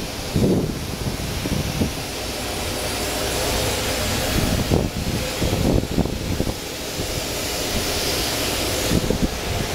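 Steady rushing roar of car-wash self-serve vacuum stations running, swelling a little midway, with a few low knocks.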